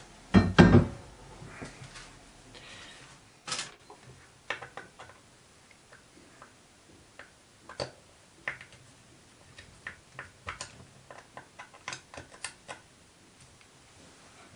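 A heavy thump about half a second in, then a run of small, irregular clicks and taps: a screwdriver turning small screws through a base board and the parts being handled.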